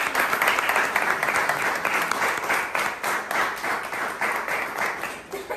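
Audience applauding: many hands clapping together, the clapping dying away near the end.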